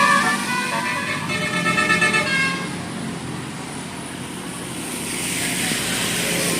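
Tour bus's 'telolet basuri' musical horn playing a melody of stepped notes, which stops about two and a half seconds in, followed by vehicle and traffic noise that swells toward the end.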